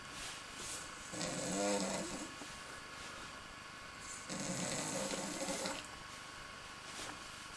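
A person snoring: two long snores about three seconds apart, with quieter stretches between them.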